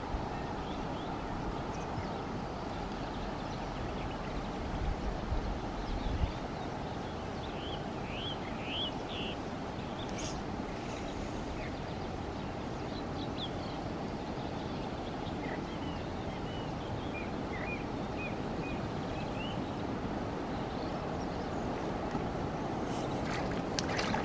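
Steady hiss of river water and breeze with faint short chirps of small birds, low rumbles in the first few seconds; near the end a hooked crucian carp splashes and thrashes at the water's surface.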